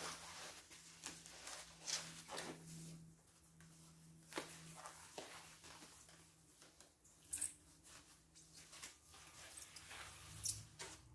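Rustling and crinkling of a thin foam packing sheet being handled and unwrapped from around a plastic part, in short irregular scrapes, over a faint steady hum.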